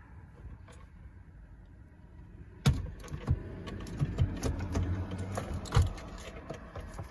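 A sharp click about two and a half seconds in, then about three seconds of clicks, knocks and rattles, with a short low hum in the middle and another loud click near the end.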